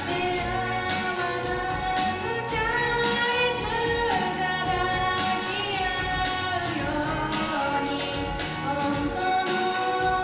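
Female idol group singing a song live on stage over its backing music.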